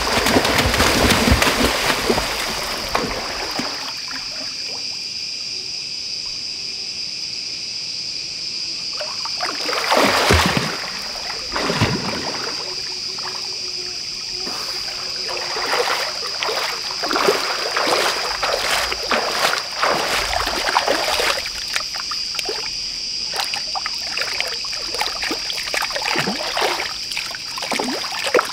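Water splashing and trickling, loudest in the first few seconds and again about ten seconds in, then giving way to small knocks and rustles, over a steady high-pitched buzz.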